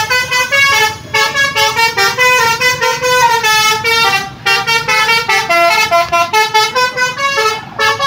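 Basuri 'telolet' musical horn on a tour bus playing a quick tune of short stepped notes, with brief breaks about a second in, after about four seconds and near the end.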